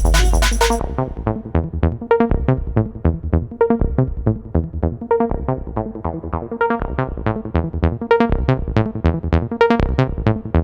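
Electronic background music. About a second in, the heavy bass and the high end drop away, leaving a quick, evenly repeating pattern of short synth notes.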